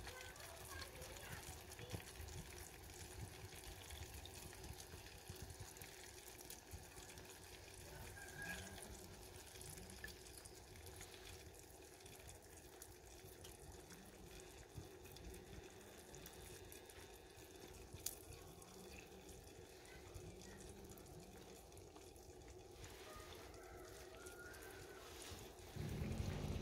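Faint, quiet ambience of an open wood fire, with occasional small clicks and drips as wooden tongs lift pieces of duck out of a pan of lard. A louder low sound starts near the end.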